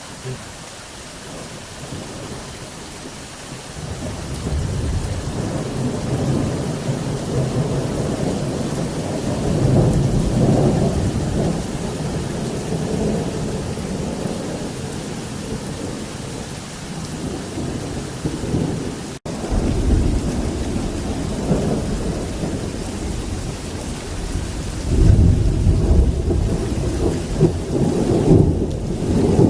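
Thunder rolling over steady heavy rain: a long low rumble swells a few seconds in and fades slowly, breaks off sharply for an instant, then a second, louder rumble builds near the end.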